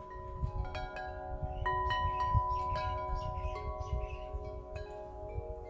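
Chimes struck at irregular moments, several clear tones overlapping and ringing on for seconds, over a low rumble.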